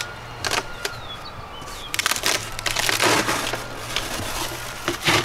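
Large cardboard carton being pried open by hand: the lid and flaps creak, crinkle and pop loose in scattered clicks. There is a louder stretch of cardboard scraping and crumpling about two seconds in, and another sharp crackle near the end.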